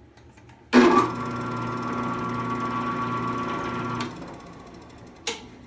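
A drill press with a sanding drum chucked in is switched on and runs steadily with a motor hum for about three seconds, then is switched off and winds down over about a second. A single sharp click follows near the end.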